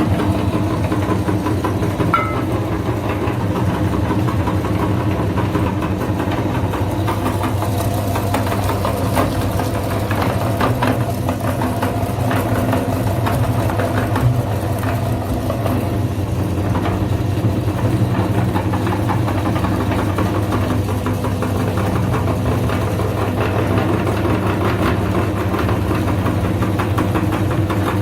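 Electric grinder motor running steadily with an even hum, with scattered crackling in the middle as material is crushed.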